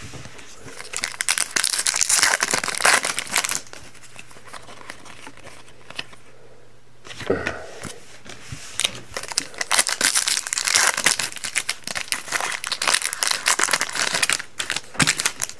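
Trading card pack wrappers being torn open and crinkled, in two spells of rustling with a quieter pause between them.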